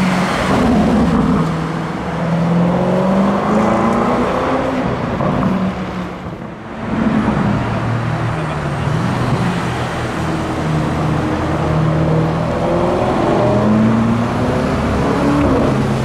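Lamborghini Urus twin-turbo V8 accelerating, its pitch rising in repeated pulls. The sound dips briefly about six and a half seconds in, then the engine pulls away again.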